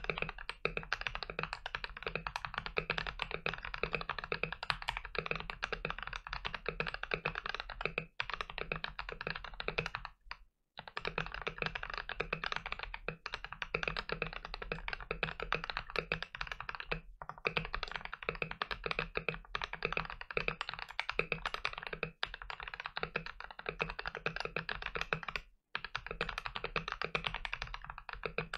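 Fast, continuous typing on a TM680 mechanical keyboard fitted with Boba U4T and lubed Akko CS Lavender Purple tactile switches. The keystrokes run in quick runs, broken by short pauses about six times.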